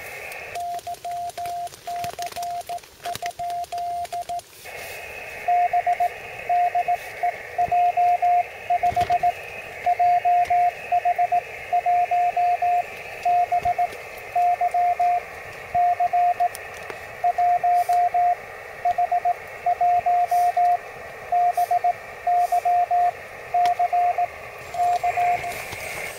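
Morse code (CW) tones from a portable QRP HF transceiver. For about the first four seconds a quieter keyed tone sounds with the receiver hiss cut out, the operator's own sending heard as sidetone. From there to the end, louder Morse sounds over steady receiver hiss.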